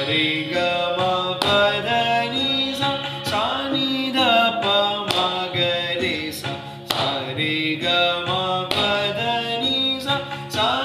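A man singing sargam syllables (sa re ga ma…) in Hindustani style, stepping up and down the scale in time to teentaal, marking the beats with regular hand claps. A steady drone tone runs underneath.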